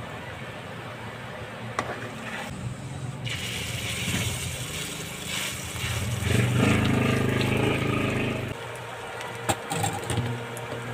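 Eggplant-and-egg omelette batter sizzling in hot cooking oil in a pan, a spoon pressing and scraping a fresh scoop of batter into the oil. A low hum grows louder between about six and eight and a half seconds, and a few sharp spoon clicks on the pan come near the end.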